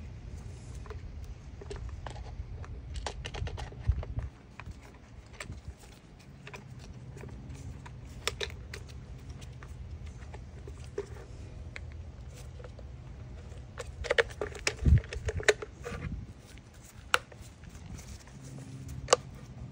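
Hard plastic clicks, taps and knocks as the halves of a DeWalt DCE100 cordless blower's handle housing are handled and fitted back together, with a cluster of louder knocks about two-thirds of the way in, over a low steady hum.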